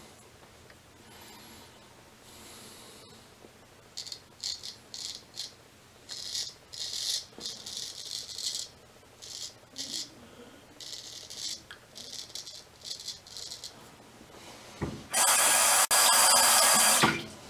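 Straight razor scraping through lathered stubble in a quick series of short strokes on a cross-grain pass. Near the end, water runs from a tap in a loud, steady rush for about two seconds.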